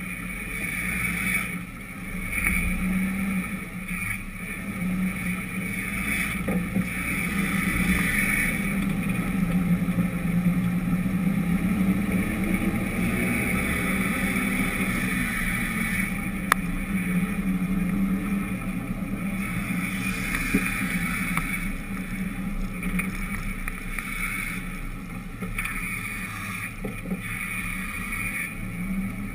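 Steady low drone with rumble from whatever carries the camera along the asphalt, wavering slightly in pitch, with one sharp click about halfway through.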